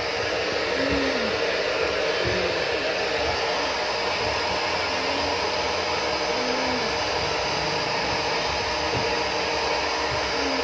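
Handheld iTeraCare terahertz device running, its fan giving a steady blowing whir like a hair dryer.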